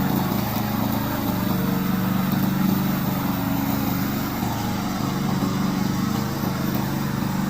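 Gasoline engine of a remote-controlled lawn mower running steadily at an even speed.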